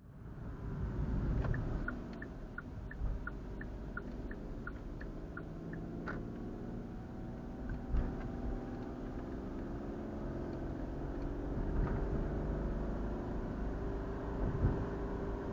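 A car driving, heard from inside the cabin: steady engine and road rumble. For a few seconds near the start there is a quick, even ticking, about three ticks a second.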